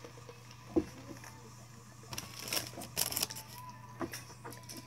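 A drink cup set down on a wooden table with a single knock, then the crackly rustle of a paper burger wrapper being handled as a cheeseburger is lifted out of it.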